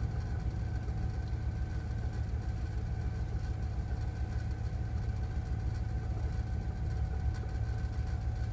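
2000 Dodge 3500 van's 5.9-litre V8 idling steadily, heard from inside the cab, just after first starting on a replacement ECM. The idle sounds a little weird, like it's going to give out soon, which the owner puts down to something jiggling around or being low on gas.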